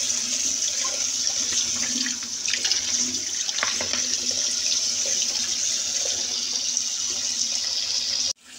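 Kitchen tap running in a steady stream onto parboiled dried white beans in a plastic colander, a continuous splashing hiss as the beans are rinsed. It stops abruptly near the end.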